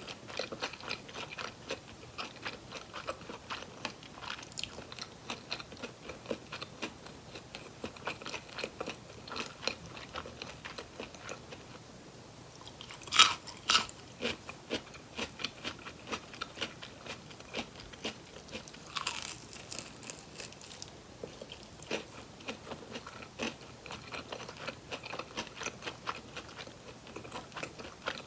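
Close-miked chewing of crispy fried chicken drumsticks: a steady run of small crisp crunches, with a loud crunching bite about 13 seconds in and another about 19 seconds in.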